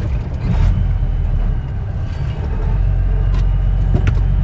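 Steady low rumble of engine and road noise from a vehicle being driven, heard from inside it.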